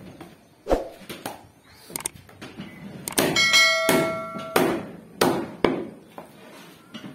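Meat cleaver chopping goat meat and rib bone on a wooden chopping block: a run of sharp, irregular chops. A metallic ringing holds for about a second just past the middle.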